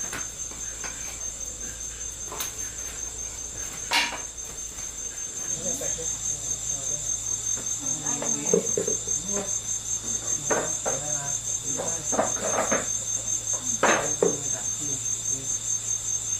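Insects trilling in a steady, continuous high-pitched chorus, with a few sharp clicks, the loudest about four seconds in and again near the end, and softer scattered knocks in the second half.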